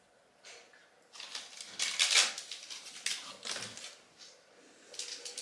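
A cat treat being cut up into small pieces by hand: a cluster of crisp clicks and rustles, loudest about two seconds in, with one more short one near the end.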